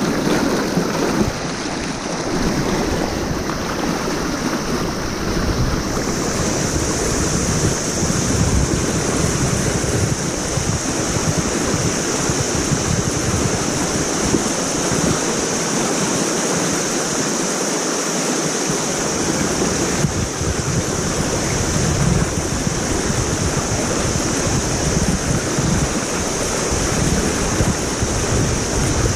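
Fast, broken river rapids rushing steadily right by the microphone, with a steady high hiss joining in about six seconds in.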